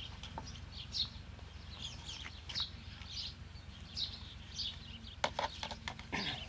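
Small birds chirping: short, high calls repeating every half second or so. A few sharp clicks come close together near the end.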